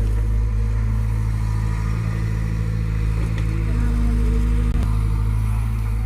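Diesel engine of a tractor or bulldozer running steadily, a continuous low drone.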